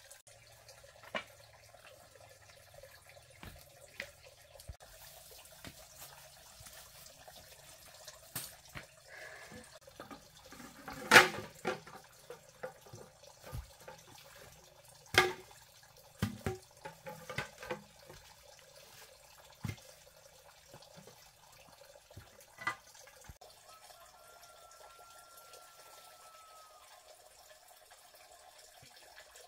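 Split bamboo strips and bamboo poles clattering and knocking as they are handled and set down: scattered knocks, the loudest about 11 seconds in, over a faint steady hiss.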